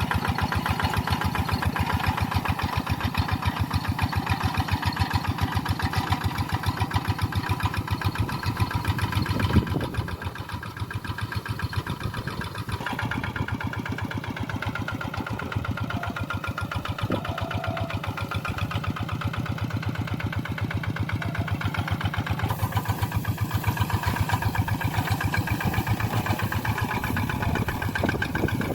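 Tractor engine running steadily with an even, rapid pulsing beat. One sharp thump comes about ten seconds in, after which the engine runs a little quieter for a while.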